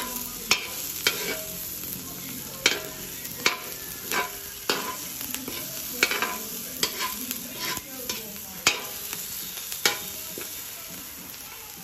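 Chopped onion and garlic sizzling in hot oil in a metal wok, being sautéed until they brown. A metal spatula stirs them, scraping and clinking against the pan about once a second.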